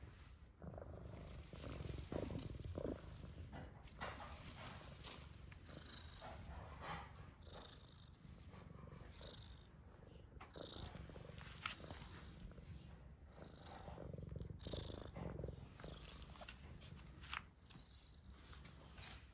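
Domestic cat purring, a faint steady low rumble, with a few scattered light clicks and taps.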